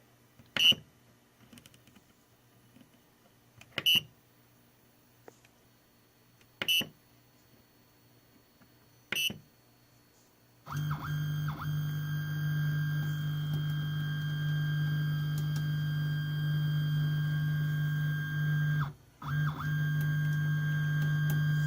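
Four short beeps a few seconds apart, then the 3D printer's Z-axis stepper motors drive the axis with a steady whine. The whine stops for a moment a few seconds before the end and starts again.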